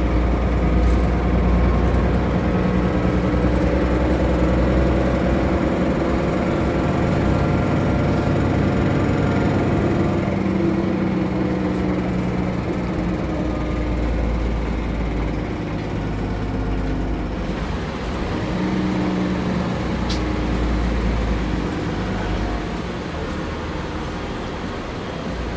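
Mercedes-Benz O405 GN2 articulated bus engine running under way, heard from inside the bus. The engine note shifts several times as the bus drives, with a steady low rumble throughout.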